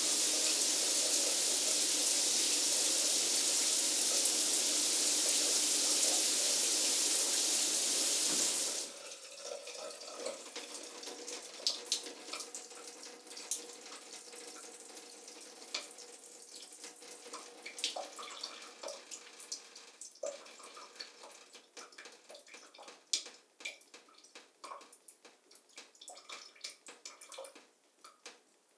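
Shower spray running steadily, then shut off about nine seconds in; afterwards water drips and trickles in scattered irregular drops that grow sparser.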